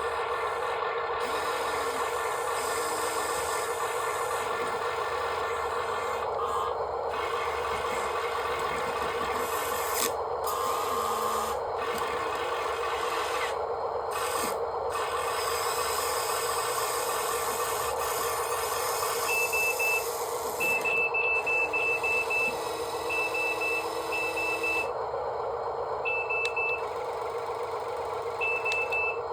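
Excavator loader running steadily with a rasping mechanical noise. From about twenty seconds in, a high beeper sounds in quick groups of short beeps.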